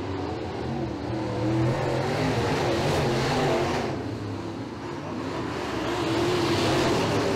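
Pro-modified dirt-track race car's V8 engine running at racing speed, its pitch rising and falling through the turns. It grows louder about a second and a half in, dips briefly past the middle, and swells again near the end.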